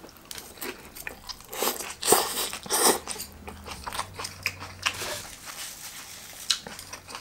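Close-up chewing of a mouthful of raw shredded cabbage salad: a run of crisp crunches, loudest about two and three seconds in.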